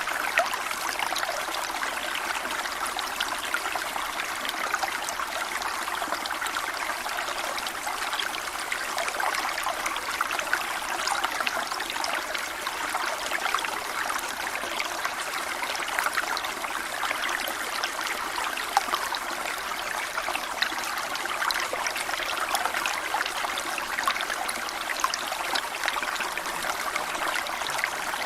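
A small stream flowing and trickling, a steady babble of water with many small splashes and gurgles.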